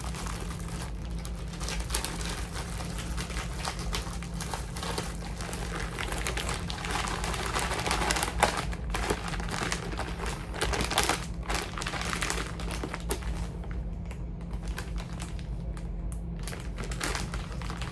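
Continuous rustling and crinkling with many small clicks and knocks, as of charging cords and their plugs being handled and sorted, over a steady low hum.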